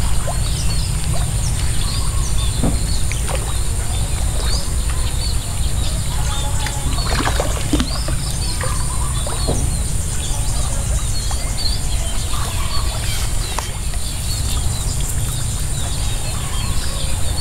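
Birds chirping over a steady low rumble and a steady high drone, with a few short splashes and drips as a wet cast net is hauled up out of the pond.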